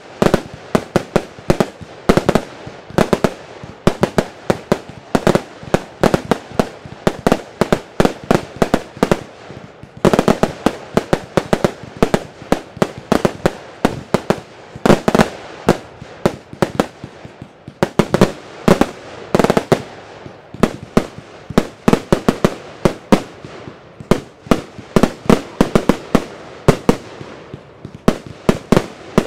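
Magnum 'Sons of Anarchy' fireworks cake, a 55-shot battery, firing: a rapid string of sharp bangs from launches and aerial bursts, several a second.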